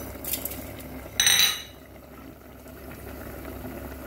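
Mustard seeds and asafoetida sizzling in hot oil in a small iron tempering ladle, with a sharp metal clink that rings briefly about a second in.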